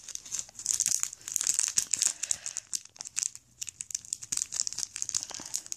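Clear plastic packaging bag crinkling in the hands as it is handled and opened, a dense run of irregular crackles.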